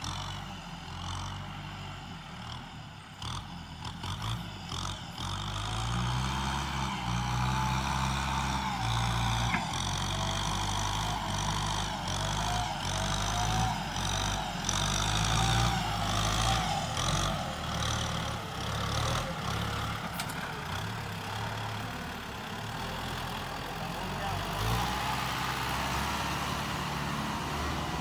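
Kubota M6240 SUH tractor's four-cylinder turbo-diesel engine working hard while pushing soil, its note growing louder a few seconds in. A wavering turbo whine rides above the engine sound, and a few knocks come in the first seconds.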